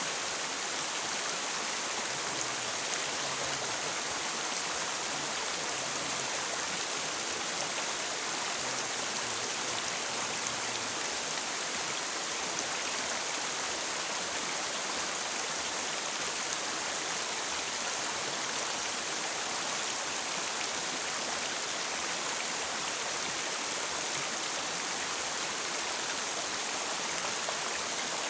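River water rushing steadily over rocks, an even, unbroken hiss of flowing water.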